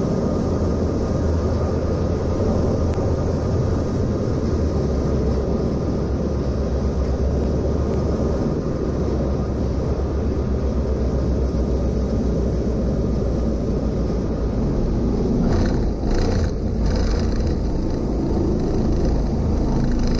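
Diamond DA40 single-engine plane's engine and propeller at reduced power, a steady low drone heard in the cabin through the flare and landing roll. A few brief noisy bursts come about three quarters of the way through.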